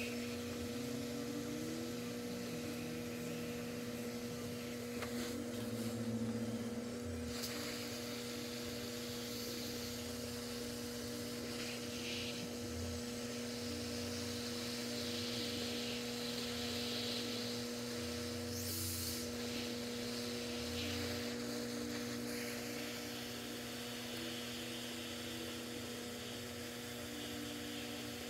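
Steady electrical hum with a faint hiss from the bench's running hot-air rework station, with a few light handling sounds.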